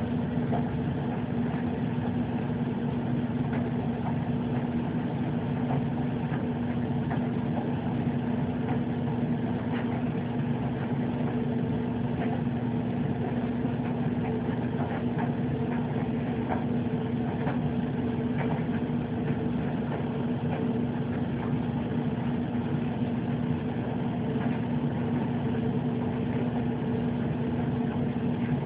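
Steady machine hum with a constant low tone and a few faint ticks.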